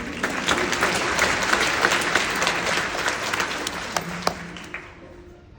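Theatre audience applauding, breaking out suddenly and dying away over about five seconds.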